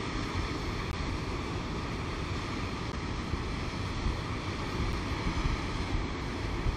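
Swollen creek water running fast over rocky rapids and a rock ledge: a steady rush of white water.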